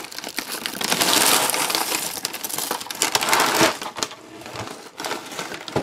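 Plastic cereal bag liner crinkling and rustling as a hand works through it, with dry flakes shifting inside. A dense crackle for the first few seconds, then quieter scattered crackles.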